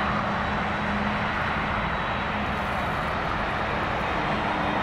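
Jet engines of a McDonnell Douglas MD-11 freighter running steadily at low thrust as it taxis, an even roar with a faint high whine.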